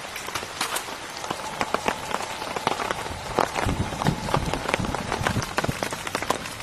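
Heavy rain falling and pattering on a surface in dense, irregular drop impacts. A few low thuds come in around the middle.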